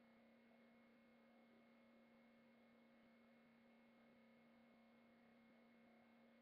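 Near silence: only a faint steady electrical hum holding a few fixed tones.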